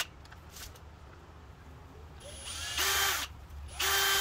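Power drill running in two short bursts with a steady motor whine, the second near the end, as a small pilot hole in a car's battery cover is widened with a slightly larger bit.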